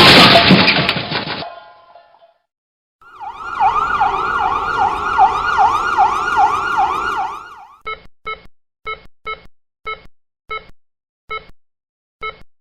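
Sound-effect sequence of a car crash aftermath: the crash noise dies away over the first two seconds, then after a short silence an emergency siren wails in a fast rising-and-falling yelp for about four seconds. It cuts off and short electronic beeps follow at roughly two a second.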